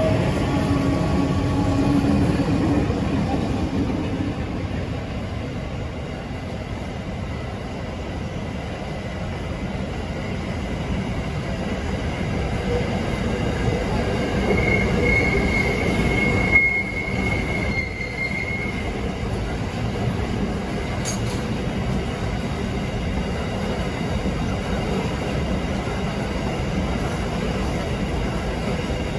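Train running by on the rails, a steady rumble throughout, with a high wheel squeal for a few seconds past the middle.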